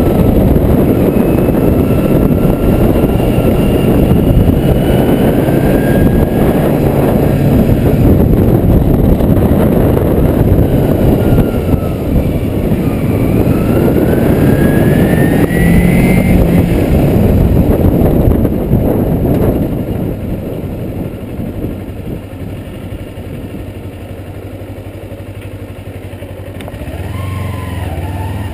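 Kawasaki Ninja motorcycle being ridden: heavy wind rush over the microphone and the engine's drone, with pitch rising and falling as it changes speed. The sound drops noticeably about two-thirds of the way in as the bike slows.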